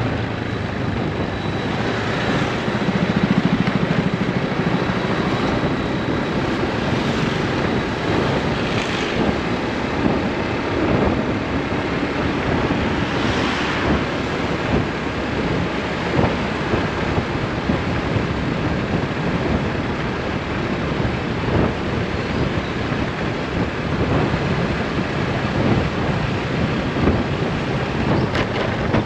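Motorbike engine running on the move, with wind rushing and buffeting on the microphone in small gusts.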